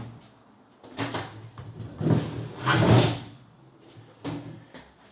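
Heavy bathtub being pushed and shoved across the floor: a knock about a second in, then rough scraping in bursts, loudest between two and three seconds in, with another short scrape near the end.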